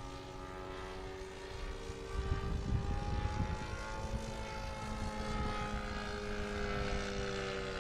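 Radio-controlled model airplane's motor and propeller droning in flight, its pitch sliding slowly down and then back up as the plane passes and turns. A low rumble joins in from about two to four seconds in.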